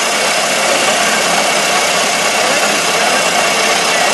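Ford Model T's four-cylinder flathead engine running steadily as the car drives along the road, mixed with road and wind noise.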